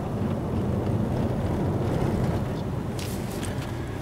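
Car driving along a narrow lane, heard from inside the cabin: a steady low rumble of engine and tyres on the road. A brief rattle of clicks comes about three seconds in.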